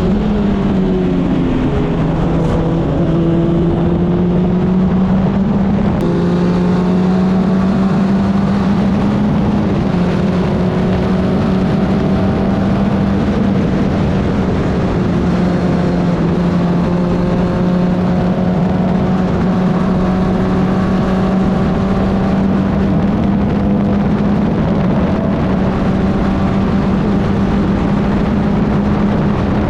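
Club Ford open-wheel race car's engine running hard at near-constant high revs, its pitch dipping and climbing again through braking and corner exits, with wind rushing past the car.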